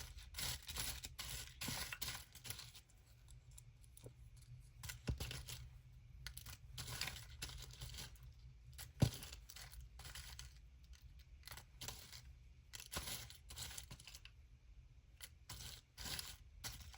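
Paper rustling as small paper ephemera pieces are sorted and shuffled by hand, in short irregular strokes, with one sharp click about nine seconds in.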